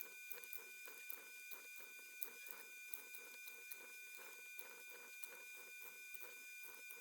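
Faint, irregular small clicks and light handling taps over a steady high electrical whine and hiss.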